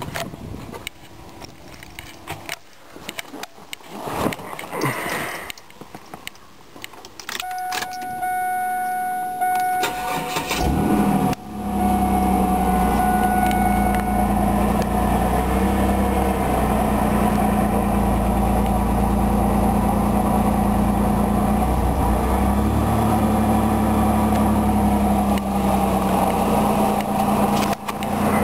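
Keys jangling and clicks of handling, then a 1996 Chevrolet Camaro's 3.8-litre V6 cranking and catching about eleven seconds in, after which it idles steadily.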